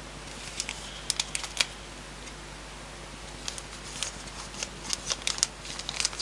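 A small postal packet being handled and opened: scattered sharp clicks and rustles of its packaging and contents, a short cluster about a second in and a denser run from about three and a half seconds on.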